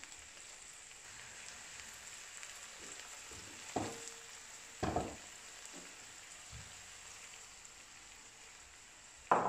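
Chopped dandelion, nettle and ground elder frying in oil in a frying pan, a steady low sizzle. Two short knocks come about four and five seconds in, and a louder knock near the end.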